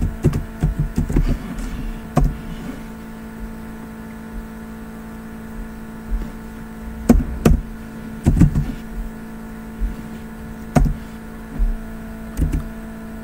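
Computer keyboard and mouse clicks, a few in quick succession at first and then single clicks every second or two, over a steady low electrical hum.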